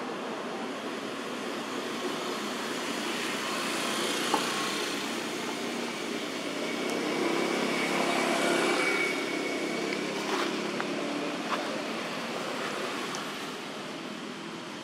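A motor vehicle passing: a rushing engine-and-road noise that builds to a peak about eight seconds in and then fades away, with a few faint clicks over it.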